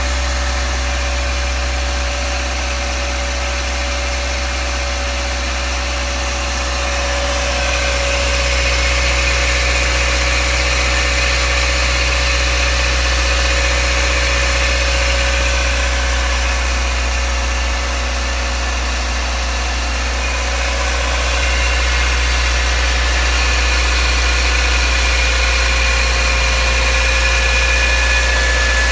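Toyota AE86's 4A-GE four-cylinder engine idling while warming up, with a thin high squeal over the engine sound that comes and goes, stronger about a third of the way in and again toward the end. The owner hears it as a belt squeal and is unsure whether it comes from the cold or from a fault.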